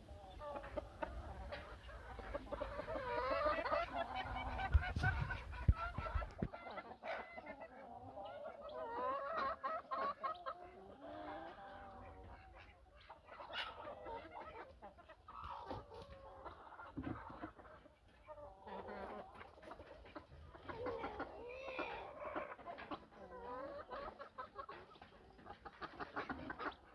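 Animals calling over and over in short, wavering high calls, on and off throughout. A low rumble on the microphone accompanies the first six seconds or so, then stops.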